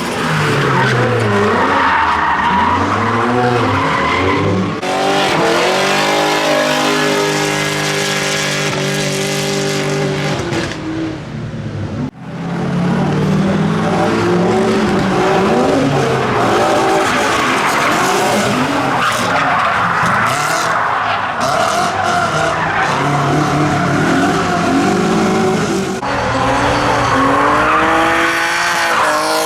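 Drift car engines revving hard, their pitch swinging up and down again and again, while the tyres skid and squeal through the slides. There is a brief break about twelve seconds in.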